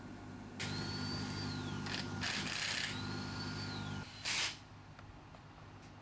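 A steady low mechanical hum, joined by a high whine that climbs, holds and then falls away, twice, with several short bursts of hissing air.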